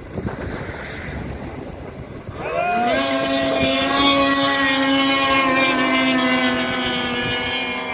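Small racing engine revving up about two and a half seconds in, then running at a steady high pitch at full throttle and easing slightly near the end, with wind on the microphone before it.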